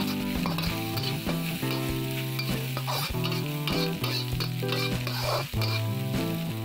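Fried rice sizzling in a hot wok, stirred and scraped again and again with a metal spatula, over background music.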